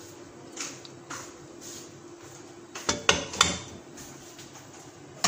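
Cooking oil poured into an empty non-stick pan, with a few soft swishes, then a quick cluster of sharp clinks of cookware about three seconds in.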